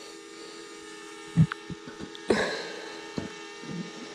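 DJI Mavic Mini drone hovering overhead, a steady propeller hum. Several short knocks and taps from hands handling the remote controller and its phone screen sit on top, the loudest about a second and a half in and a little after two seconds.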